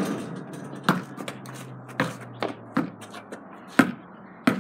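A basketball bouncing on hard ground about once a second, five or six sharp bounces in a row, the first the loudest.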